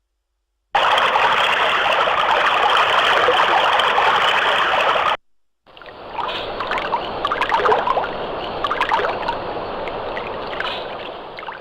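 Two separate water sound effects: first a steady rush of flowing water that starts just under a second in and cuts off about five seconds in; after a brief gap, a stream of babbling, trickling water with small irregular splashes that fades out near the end.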